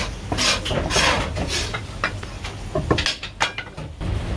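A run of irregular short scraping and clattering noises, several in a row, as of containers or utensils being handled.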